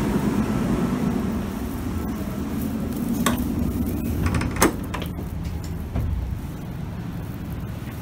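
Steady low hum inside a train carriage, with a few sharp clicks and knocks, the loudest about four and a half seconds in.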